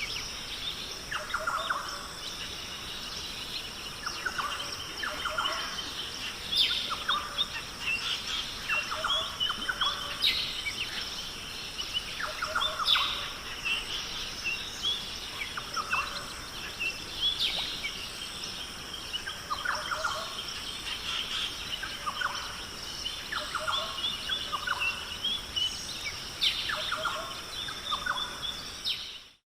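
Many wild birds calling and chirping at once, short repeated calls overlapping, over a steady high-pitched background drone; the sound cuts out abruptly right at the end.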